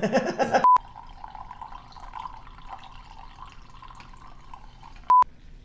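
Two short electronic beeps at one steady pitch, about four and a half seconds apart. Between them, a faint steady trickle of liquid being poured. A brief loud noise comes just before the first beep.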